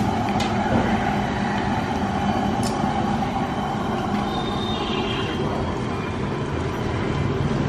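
A large stockpot of chicken-head broth at a rolling boil over its burner, making a steady rushing noise.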